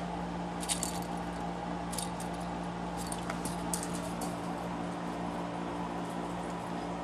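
Steady low hum of room equipment, with a few faint, short, high clicks and jingles scattered through it.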